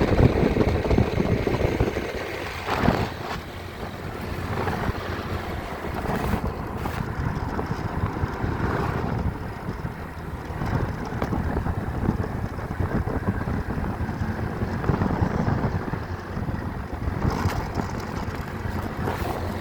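Rumbling noise of a moving vehicle, with wind buffeting the microphone.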